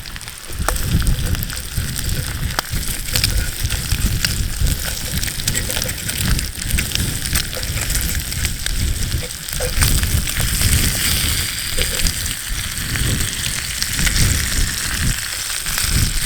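Bacon sizzling and crackling in a cast iron pan over a twig stove, with wind gusting on the microphone.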